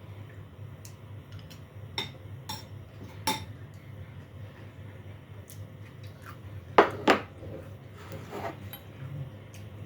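Cutlery clinking and scraping against a plate during a meal: a few light clicks, then two loud clinks in quick succession about seven seconds in, over a steady low hum.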